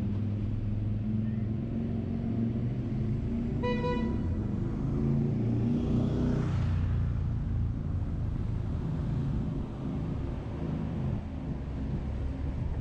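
Car driving on city streets with steady engine and road noise, and a short single-tone car-horn toot about four seconds in. Around six seconds in, a rushing swell rises and fades as a vehicle passes close by.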